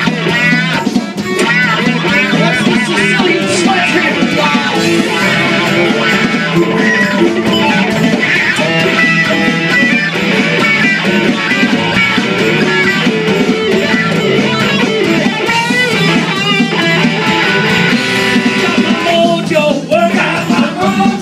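Live blues band playing, led by an electric guitar solo with bent, wavering notes over the band.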